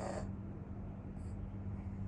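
Sleep snoring: one snoring breath ends just after the start, followed by a pause with a short faint snuffle about a second in. A steady low hum runs underneath.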